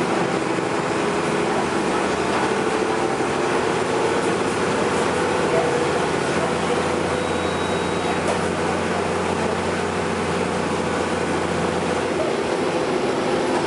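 Steady rumble and hum of a moving vehicle, without breaks.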